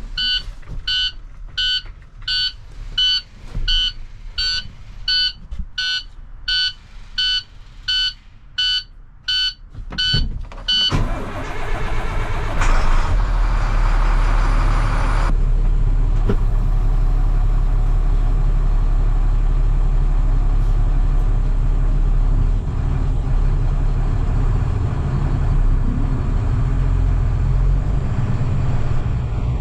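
Diesel truck's dash warning chime beeping about two times a second while the glow plugs heat, a 'wait to start' condition. About eleven seconds in, the starter cranks for roughly four seconds and the engine catches, then settles into a steady low idle.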